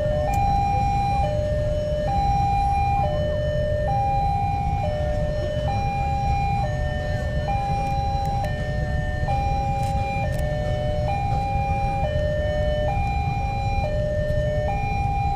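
Railway level-crossing warning alarm sounding: an electronic two-tone chime alternating steadily between a high and a low note, each held just under a second, over a steady low rumble.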